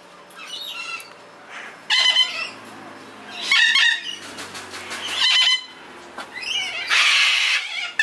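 Parrots squawking in loud bursts about a second and a half apart, ending in a longer, harsher call near the end, which the owner takes for one of their sulphur-crested cockatoos coming over.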